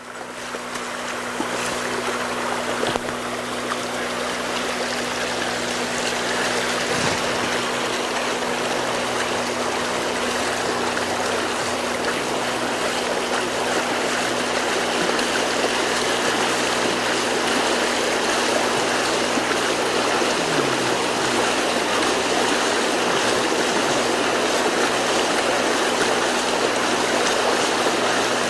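Water rushing steadily across a road, like a shallow stream, with a steady low hum underneath.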